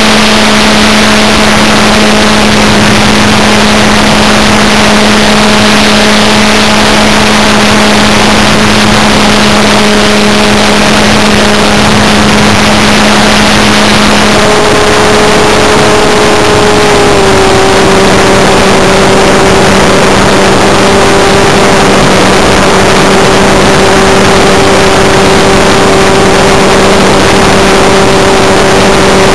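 Electric model airplane's motor and propeller running, a loud steady hum over the rush of air across the onboard microphone. The pitch steps down a little about fifteen seconds in and again a couple of seconds later.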